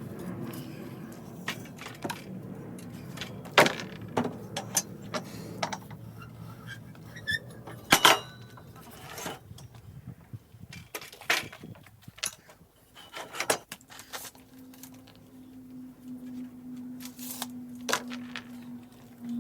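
Workshop handling sounds: scattered knocks and light metallic clinks of tools and hardware being picked up and set down, the loudest about a third of the way in and again near the middle. A steady low hum comes in about three-quarters of the way through.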